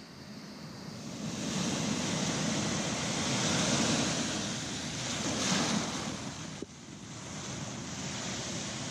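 Small waves breaking and washing in over rocks at the shore, the surf swelling over several seconds, dropping off sharply about two-thirds through, then building again with the next wave. Wind is on the microphone.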